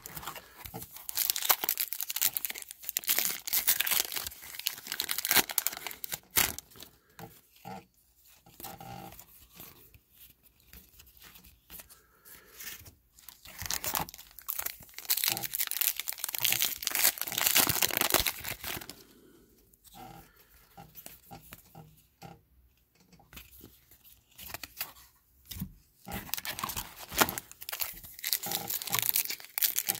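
Foil trading-card packs being torn open and crinkled, with the wrappers crackling in three long bouts and quieter rustling of cards being handled in between.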